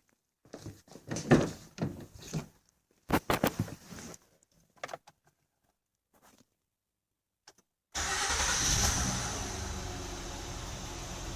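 Scattered knocks and clatter for the first few seconds, then about eight seconds in a 2008 Honda Odyssey's replacement J35 3.5 L V6 starts abruptly and runs on its first start after the engine swap, easing slightly in level as it settles.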